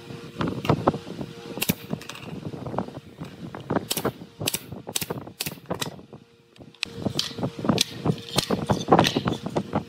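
Pneumatic brad nailer firing a run of sharp shots into pine trim, about two a second in bursts, with duller knocks of the wood being handled between them.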